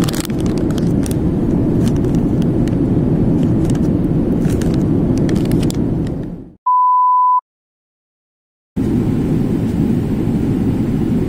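Steady low rumble of airliner cabin noise that fades out about six and a half seconds in. A short, steady, high beep follows, then dead silence for about a second and a half, and the cabin noise comes back near the end.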